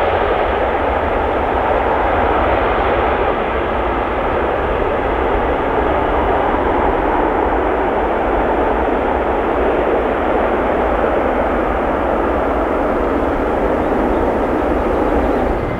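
Aircraft engines making a steady, even noise with a low rumble underneath.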